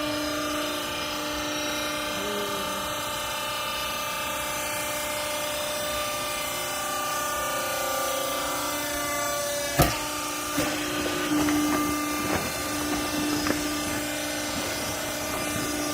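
Used-clothes baler running with a steady whine. A sharp clunk about ten seconds in, then a few lighter knocks over the next few seconds.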